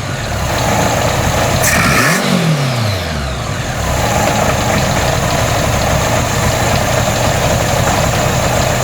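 1983 Honda GL1100 Gold Wing's flat-four engine idling, with a few pinhole vacuum leaks in its intake. About two seconds in, a quick throttle blip sends the revs up and back down to idle.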